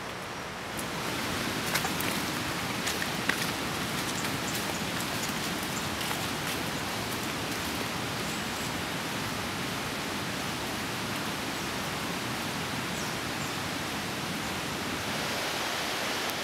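Rain falling steadily on forest foliage, an even hiss that gets louder about a second in, with a couple of sharp ticks soon after.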